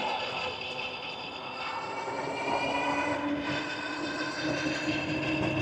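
Hub motors of a dual-motor Aniioki A8 e-bike whining steadily under way, over tyre and wind noise. The whine grows stronger about one and a half seconds in.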